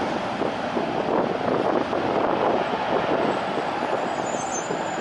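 Road traffic: motorcycles and a car passing close by, a steady mix of small-engine and tyre noise.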